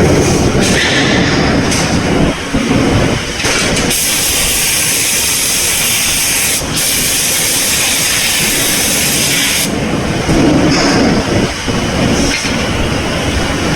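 Forging-plant machinery running with a steady rumble, and a loud hiss lasting about six seconds in the middle, broken once briefly.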